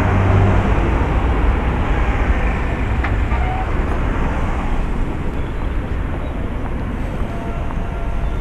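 City street traffic noise: a steady rumble of vehicle engines and tyres, loudest in the first couple of seconds, with a car driving past near the end.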